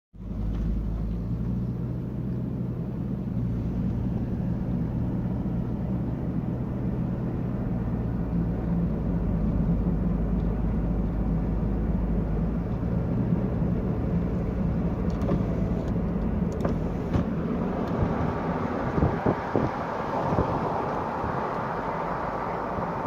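A motor vehicle driving, its engine giving a steady low hum under road noise. From about three-quarters of the way in the noise turns rougher and brighter, with a few short knocks.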